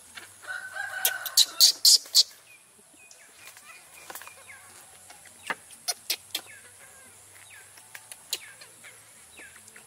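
Short high-pitched animal calls: a brief pitched call, then a string of quick chirps each falling in pitch. Loud sharp clicks come in a cluster between about one and two seconds in, with a few more scattered after.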